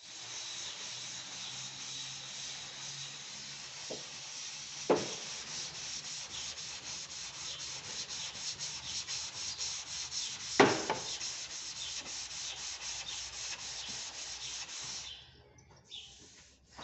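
Sandpaper rubbing over the steel door panel of a VW Beetle in quick, even back-and-forth strokes, about four a second, with two sharp knocks along the way; the sanding stops near the end.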